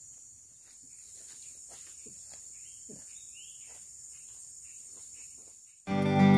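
Faint, steady, high-pitched drone of insects, with a few scattered faint chirps and clicks. Near the end, acoustic guitar music cuts in suddenly and loudly.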